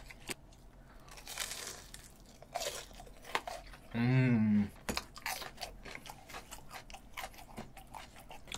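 Close-miked crunching and chewing of a raw green chili pepper, with crisp crunches scattered throughout. About four seconds in comes a short closed-mouth hum.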